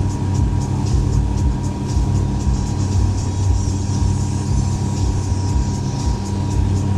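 Boat's outboard engine running steadily under way, with a fast, regular faint ticking high over it.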